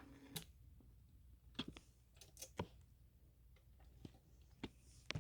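Near silence after the recording ends: a low steady hum with a few scattered, irregular clicks and pops from the vinyl record's surface.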